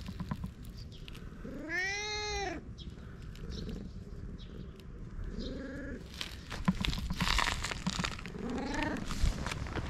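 Long-haired tabby cat meowing three times: a longer call that rises and falls about two seconds in, then two shorter meows, the last falling in pitch. Scattered rustling and sharp clicks sound between the calls.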